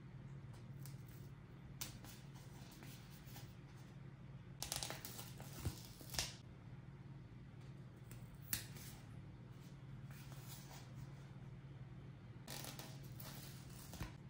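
Hands unboxing and handling toys and their packaging: scattered light clicks and brief rustles, a few sharper clicks among them, over a low steady hum.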